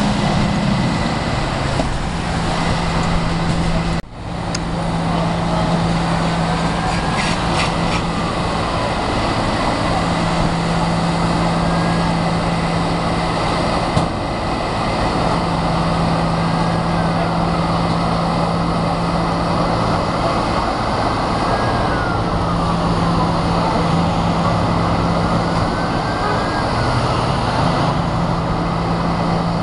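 Heavy engine idling steadily under roadside noise: a low, even hum that fades in and out every few seconds, with a short drop-out about four seconds in.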